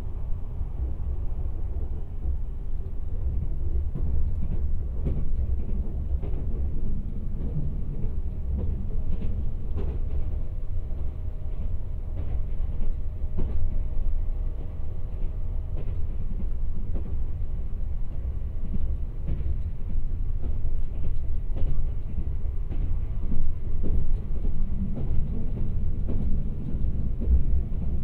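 Kintetsu 26000 series Sakura Liner limited express electric train running, heard inside the passenger cabin: a steady low rumble with light clicks now and then. A faint steady tone comes in for a few seconds midway.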